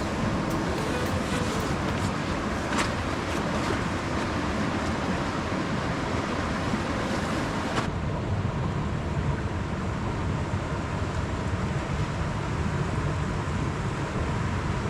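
River stream and small waterfall rushing over rocks: a steady, continuous water noise, its hiss dulling slightly about halfway through, with a few faint clicks in the first few seconds.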